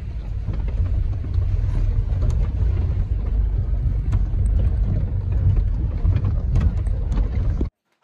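Cabin noise of a car driving over a rough, stony dirt track: a loud low rumble of engine and tyres, with scattered knocks and rattles from the jolting. It cuts off suddenly near the end.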